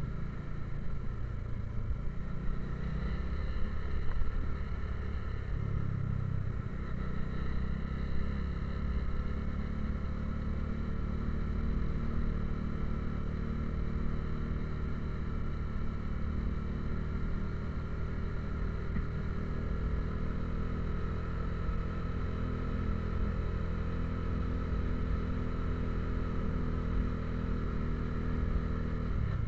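Motorcycle engine running steadily at low speed on a rough dirt road, its note holding even throughout, with a few louder knocks about four seconds in.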